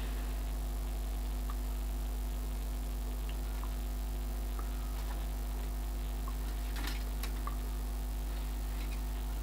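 Low steady electrical hum with a few faint clicks and ticks as wires and a soldering iron are handled at a terminal; two sharper clicks come about seven seconds in.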